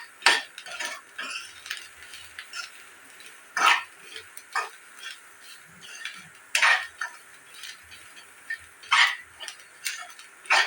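A utensil scraping and knocking against a cooking pan in short, irregular strokes as the squid masala is stirred.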